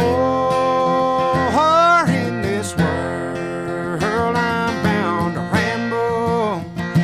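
Country-style music with acoustic guitar: a long held melody note, then notes that bend in pitch, between sung lines of the song.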